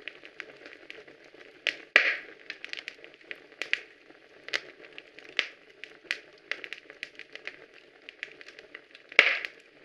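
Soft, irregular crackling and clicking over a faint, steady hiss, with two louder rustling bursts about two seconds in and near the end.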